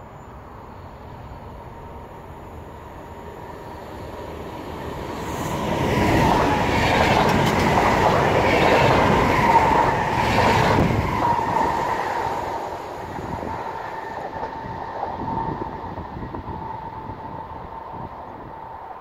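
VR electric multiple unit passing at speed without stopping. Its running noise builds from about four seconds in, is loudest for about five seconds in the middle, then fades as it moves away, with a thin steady whine over it.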